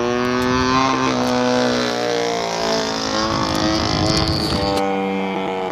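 Engine of a Big Hots RC model plane running in flight, a steady buzzing note that shifts in pitch about two seconds in and settles on a new steady note near five seconds, as the throttle or the plane's path changes.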